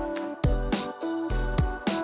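Background music with a drum beat and held instrumental notes.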